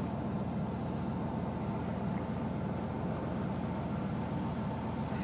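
Old Chevy 2500 4x4 pickup's engine idling steadily with the automatic transmission in drive, a low even hum. The owner calls the engine a bit tired.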